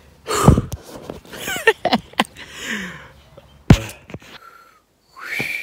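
Irregular knocks and rustling handling noise from a handheld phone being jostled, with a short breathy sound near the end.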